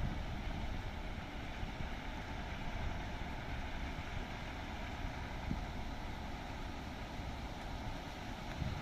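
Steady drone of the KS-100D boat's diesel engine running, with wind buffeting the microphone.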